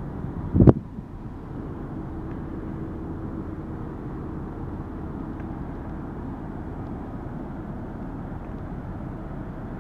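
A steady low rumble, like distant engines, with a faint hum in it, following a single sharp knock about a second in.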